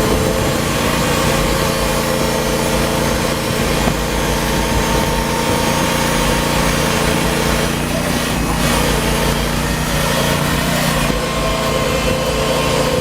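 Small engine of a Hudson Oscar 30 portable band sawmill running steadily.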